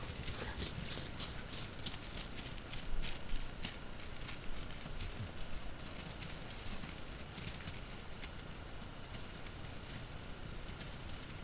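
Wolves' paws crunching on crusted snow: irregular sharp crackles, thick at first and thinning out through the second half, over a steady low rumble.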